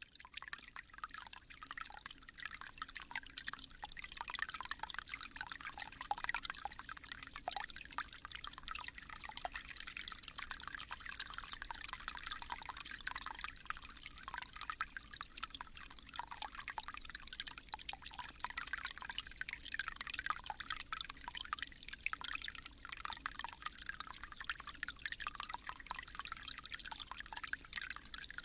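A small, shallow stream babbling and trickling steadily over its bed, fading in at the start.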